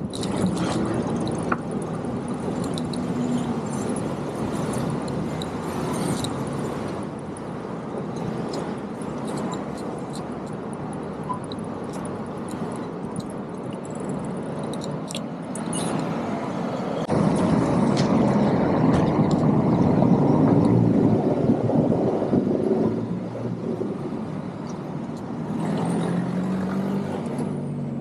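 Street traffic: motor vehicles running and passing, with one louder pass building about 17 seconds in and easing off about 23 seconds in.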